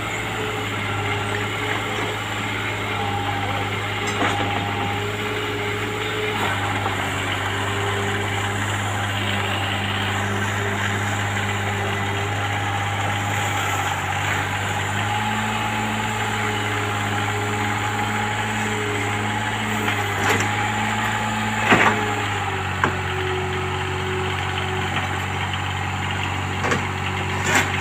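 Komatsu mini excavator's diesel engine running steadily while the arm and bucket are worked, its note shifting in steps a few times as the hydraulic load changes. A couple of sharp knocks come about two-thirds of the way through.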